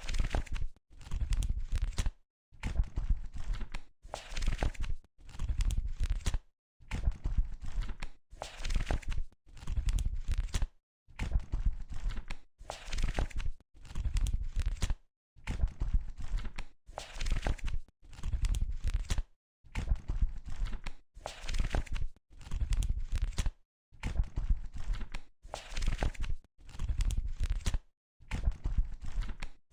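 Book pages being flipped one at a time: a papery rustle about every one and a half seconds, each lasting about a second, with short silent gaps between flips.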